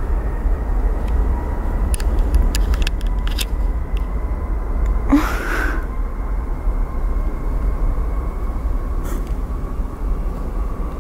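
Jet airliner's engines at takeoff power during its takeoff roll, heard from afar as a steady deep rumble with a faint steady whine. A brief rising whoosh cuts across about five seconds in, and a few sharp clicks come a couple of seconds earlier.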